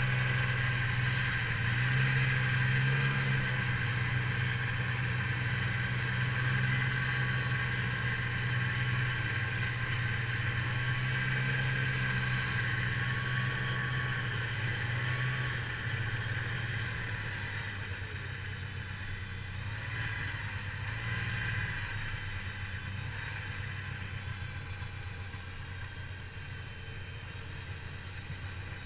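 Snowmobile engine running steadily while riding over snow. Its note drops a little about halfway through, and it grows slightly quieter toward the end.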